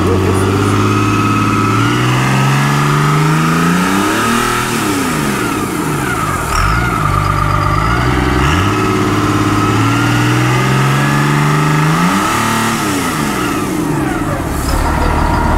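A vehicle engine accelerating hard, its pitch climbing steadily for several seconds, then dropping sharply about four seconds in and climbing again, with another sharp drop near the end.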